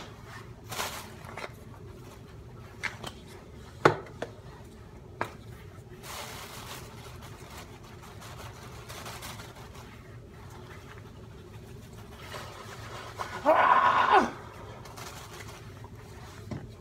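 Plastic bag holding a flour and cornflake coating mix rustling as it is handled, with scattered sharp clicks and taps, the loudest about four seconds in. About thirteen and a half seconds in, a short wordless vocal sound.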